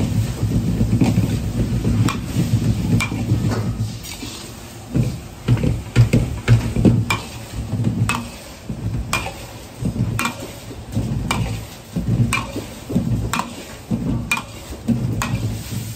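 Metal wok ladle stirring and scraping a large batch of frying egg with pork and garlic chive stems in a wok, the egg sizzling. A low steady rumble runs through the first few seconds and then eases, after which the ladle knocks sharply against the wok about once a second.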